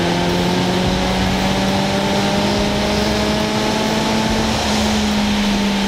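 Kawasaki inline-four sport motorcycle accelerating hard in sixth gear, its engine note rising slowly and steadily as the revs climb. Heavy wind rush over the microphone.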